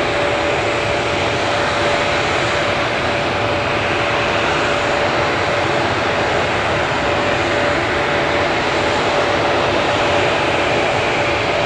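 Jet airliner engines running at taxi idle: a steady rushing noise with a constant whine.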